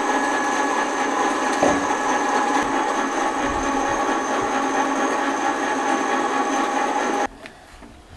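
Small electric winch hoist running with a steady whine as it slowly winds a bucket up on its cable, cutting off about seven seconds in.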